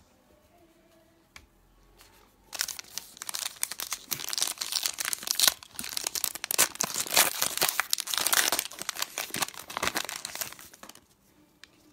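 A trading-card pack's foil wrapper being torn open and crinkled: dense crackling that starts about two and a half seconds in and stops about a second before the end.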